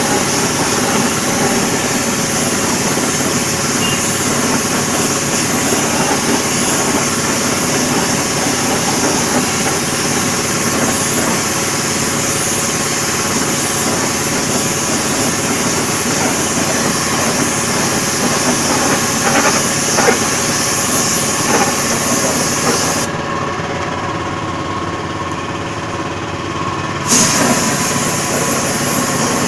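Air spray gun hissing as it sprays silver chrome solution onto a steel wheel, over the steady hum of an air compressor. The hiss stops for about four seconds near the end while the compressor keeps running, then starts again.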